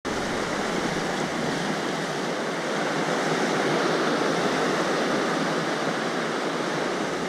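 Sea surf washing over shoreline rocks: a steady rushing of breaking waves.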